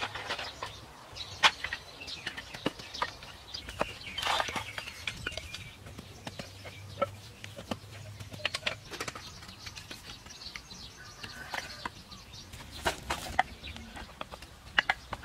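Scattered sharp knocks and taps from bamboo and outdoor building work, with birds calling now and then in the background.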